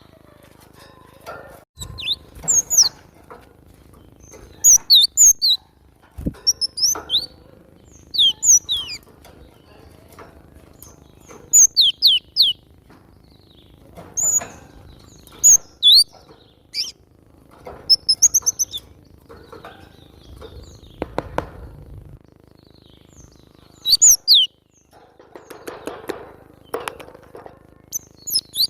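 Cinereous tit (glatik batu) singing: short phrases of high, sharp, downward-sliding whistled notes, repeated every second or two, with soft rustling between phrases.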